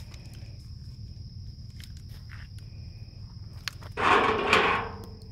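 Putter tapping a mini-golf ball, then about a second of the ball rolling loudly through the hollow plastic loop obstacle.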